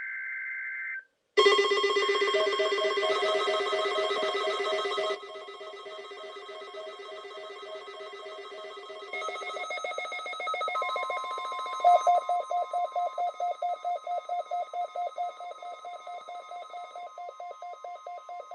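Electronic emergency-alert tones from weather-radio/EAS equipment. A warbling data burst ends about a second in, then several overlapping steady alarm tones sound, changing in pitch around five and nine seconds in. A steady tone joins near eleven seconds and a rapid beeping of about four beeps a second runs from about twelve seconds on.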